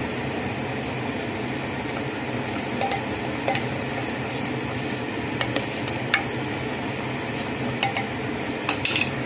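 A spoon clinking and scraping against a speckled enamel cooking pot, eight or so light clinks with several close together near the end, over a steady rushing hum as the pot of broth bubbles.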